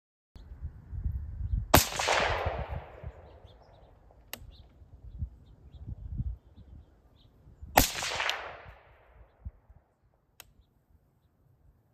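Two suppressed rifle shots about six seconds apart from a stock Geissele Super Duty AR-15 fitted with an Anechoic Anechox 223 titanium low-back-pressure suppressor, each a sharp crack that fades out in a long echo.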